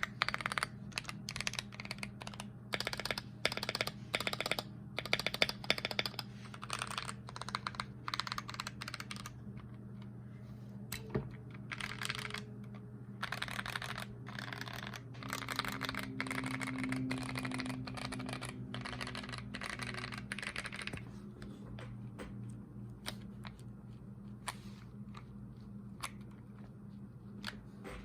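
Typing on a Keychron Q1 mechanical keyboard with Mauve tactile switches, modded with tape, polyfill and a polycarbonate plate: fast runs of keystrokes at first, thinning to slower, softer typing in the last few seconds. A steady low hum sits underneath.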